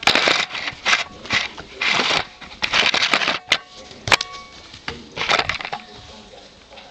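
Close handling noise on the camera microphone as puppies paw and mouth at it and it is jostled: a run of loud scraping, rustling bursts, roughly one every half second, with a few sharp clicks.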